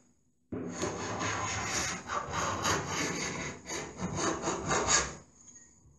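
A shave hook's blade drawn again and again down the edge of a painted wooden door, scraping back fat edges of built-up paint. The scraping strokes start about half a second in, follow one another quickly, and stop about a second before the end.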